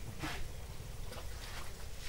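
A short splash of water about a quarter second in as a hooked fish is drawn to the surface at the landing net, over a steady low rumble.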